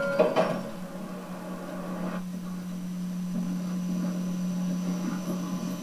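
A steady low hum with a few short knocks, one just after the start and one about two seconds in, as the background music stops at the very beginning.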